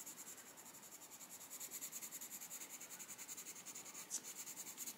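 An Arteza Expert coloured pencil scratching on colouring-book paper in faint, rapid, even back-and-forth strokes as gaps in the colouring are filled in. A single sharper tick comes a little after four seconds in.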